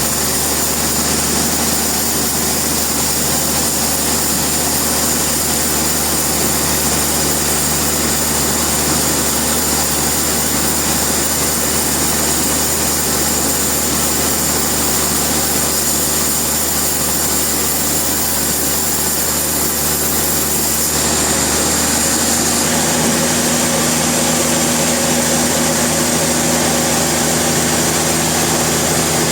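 Sawmill machinery running steadily, a motor-driven hum with a hiss on top; its tone shifts a little higher about two-thirds of the way through.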